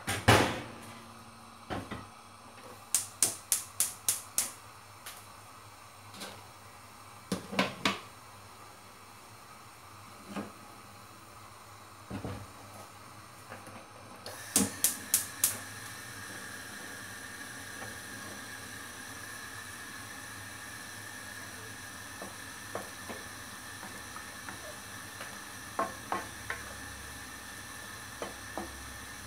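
Wooden spoon stirring a coconut-milk vegetable curry in a wok: scattered sharp clicks and knocks, some in quick runs of four to six. About halfway through a steady hiss sets in as the pan simmers.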